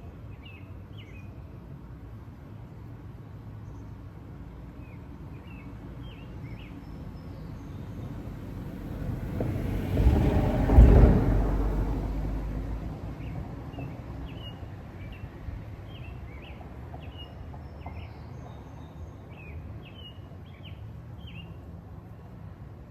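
Small birds chirping in short, repeated calls, while a vehicle passes by: a rumble that builds, peaks about ten seconds in and fades away.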